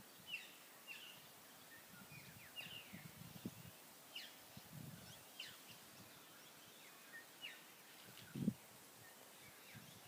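Birds calling in the garden: a dozen or so short, high chirps that sweep down in pitch, scattered through, over a faint steady outdoor hiss. A low thump about eight and a half seconds in is the loudest sound.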